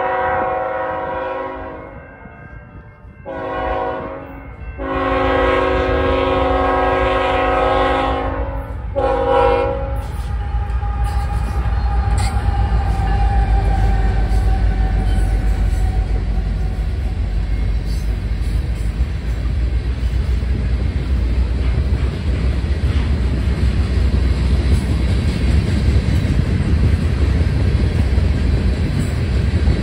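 Freight train's air horn sounding a chord in four blasts for a grade crossing: the end of one blast, a short one, a long one and a short one, ending about ten seconds in. Then the locomotive and a long string of covered hopper cars pass close by with a steady heavy rumble and the clatter of wheels on rail.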